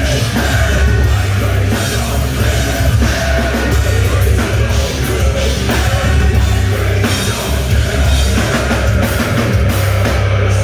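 Live hard rock band playing loud, with a driving drum kit, heavy bass and guitars, and a male lead singer singing over them.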